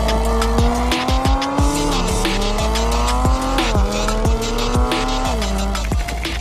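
Kia Stinger GT2's twin-turbo V6 accelerating hard through the gears: its pitch climbs and drops back at each of three upshifts. A music track with a steady beat plays under it, and the engine gives way to the music near the end.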